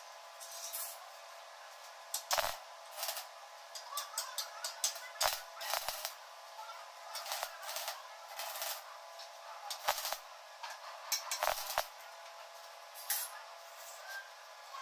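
Stick arc welding on a steel frame: irregular sharp crackles and clicks from the arc, with a few louder metal knocks, about five of them, spread through.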